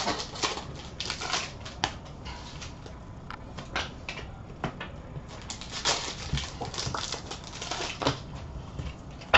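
Trading cards being handled and set down on a glass counter: irregular light clicks and taps, with some brief papery rustling.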